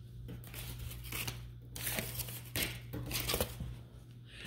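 Soft footsteps and rustling handling noise as a person walks onto a tile floor, a series of quiet scuffs about two a second over a steady low hum.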